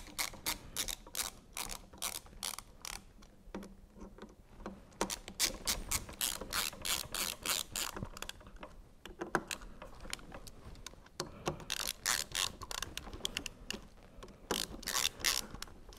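Quarter-inch hex ratchet handle clicking on the back-strokes as scope-ring screws are run down with a Torx bit, in runs of quick clicks with short pauses between. The screws are only being snugged; final torque has not yet been applied.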